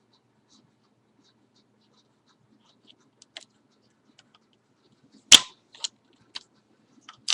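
Faint clicks of a plastic action figure being handled, then a single sharp clatter about five seconds in as the toy falls over, followed by a couple of lighter clicks.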